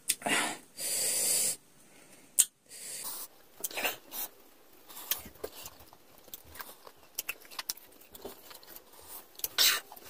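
Sharp hissing intakes of breath through the teeth, twice near the start, at the sting of sour lemon. Then a sharp click and many small scattered clicks and smacks of chewing lemon slices.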